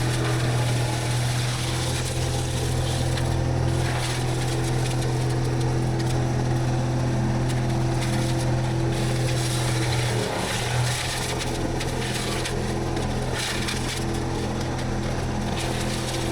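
A machine's engine running steadily under load, with a short dip and change in its note about ten seconds in.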